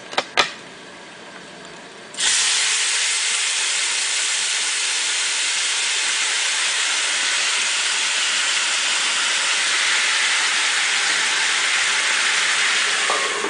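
Two quick knocks, then about two seconds in a loud, steady hiss as chicken broth hits a hot, oiled pan of browned potstickers and flashes to steam. It eases off near the end.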